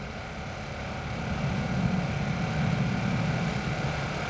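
Distant jet engine rumble from four F-16 fighter jets flying in diamond formation, a steady low sound that swells a little from about a second in.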